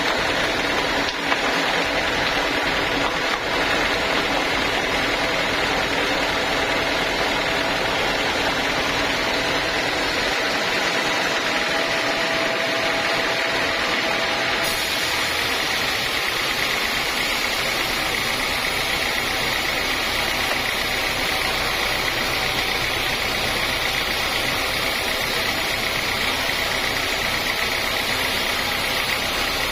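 Sawmill machinery running steadily: an engine-driven saw giving a continuous mechanical drone with a steady hum, its tone shifting abruptly about halfway through.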